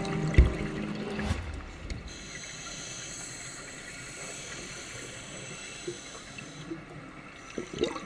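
A short low thump just after the start as background music ends. Then a steady hiss of a scuba regulator as the diver breathes in, and near the end the loud gurgling rush of exhaled bubbles starts.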